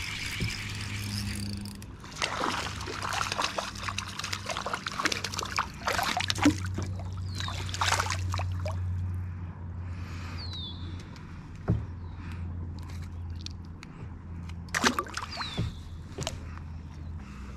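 A small bass splashing and thrashing at the water's surface as it is reeled up beside the boat and swung out of the water. There are a few handling clicks later on.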